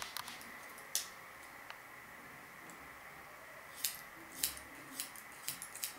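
Barber's scissors snipping hair held over a comb: a few separate snips in the first couple of seconds, then a quicker run of snips in the second half.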